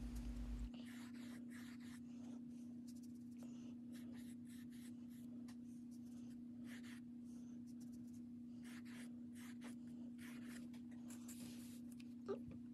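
Faint, irregular scratchy rubbing of hands against the stretched canvas and its cardboard board, over a steady low hum. A slightly louder tick comes near the end.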